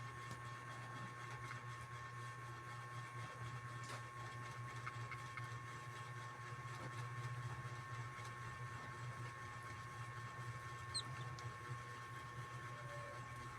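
An animal snoring softly in its sleep, over a steady background hum.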